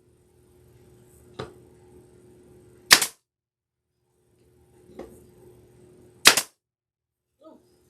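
Pneumatic brad nailer firing: four sharp shots about a second and a half apart, the second and last loudest.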